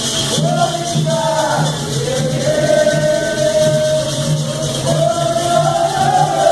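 Voices singing a chant together over shaken percussion, with long held notes that rise and fall in pitch.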